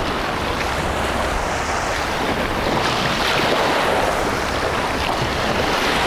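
Small sea waves washing up and running back over a sandy, shelly beach at the water's edge, with wind on the microphone.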